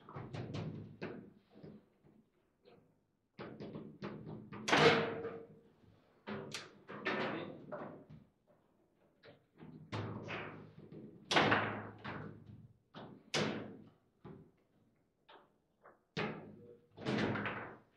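Foosball table in fast play: the hard ball cracking off the plastic player figures and the table walls, and the rods knocking against their stops, in irregular sharp hits with short pauses between. A goal is scored during the first half.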